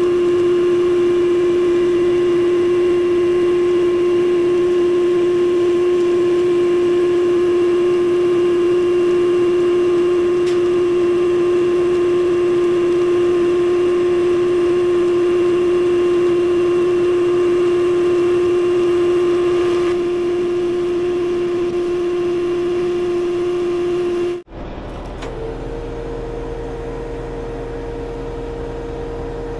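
Oshkosh HET 8x8 heavy wrecker running its winch to reel in cable: a loud, steady whine over the running engine. About 24 seconds in it cuts off abruptly and a different steady whine with a low engine rumble follows.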